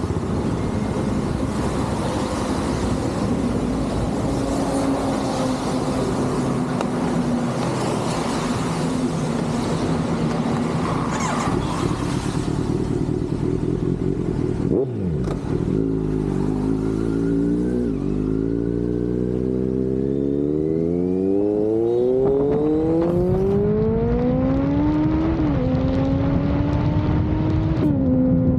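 Kawasaki Z900 inline-four engine and exhaust on the move. For about the first half it runs at a steady drone under a rushing noise. About halfway through the engine note drops sharply, then climbs steadily through the revs, falling back at two gear changes near the end.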